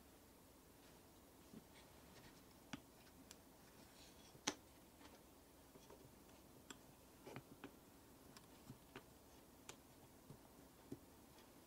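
Faint, scattered clicks and light taps of metal and wooden parts of a DIY knife-sharpening jig being handled and set against a clamped knife blade, with one sharper click about four and a half seconds in.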